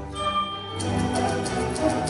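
An orchestra playing a light classical piece with a typewriter used as a percussion instrument. The rapid key clicks stop briefly near the start while a bell-like ding rings, then the strings and clicks resume just under a second in.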